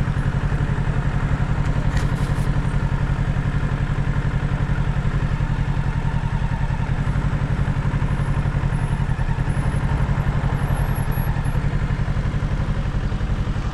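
Kawasaki Ninja 650's parallel-twin engine idling steadily at an even, unchanging pitch.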